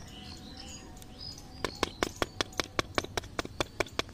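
Faint bird chirps over a steady outdoor background, then, about a second and a half in, a quick, even run of sharp clicks, about six a second, that goes on to the end.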